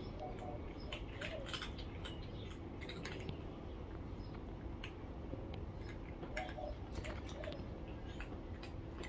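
A cat crunching dry kibble: irregular sharp crunches and clicks over a steady low outdoor background, with a few faint bird calls.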